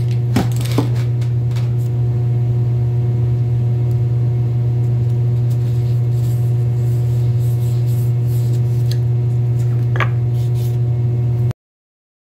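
A steady low hum, with a few brief high hisses from a can of spray adhesive in the last few seconds. The sound cuts off abruptly shortly before the end.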